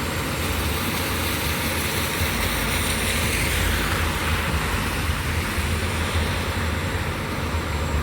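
Steady vehicle noise outdoors: a low engine rumble under a hiss, with the hiss swelling and fading about three seconds in.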